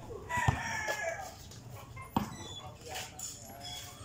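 A rooster crowing once, starting about a third of a second in and lasting under a second. Sharp knocks about half a second and two seconds in, from a basketball bouncing on the concrete court.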